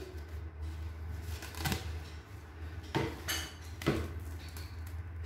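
Cling film being pulled from its roll and handled over a plastic mixing bowl: light crinkling and three sharp knocks of the roll and bowl, over a steady low hum.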